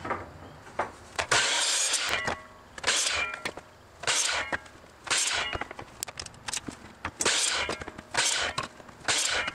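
A pine board scraping along the metal table and fence of a miter saw in short strokes, about one a second, with the saw not running.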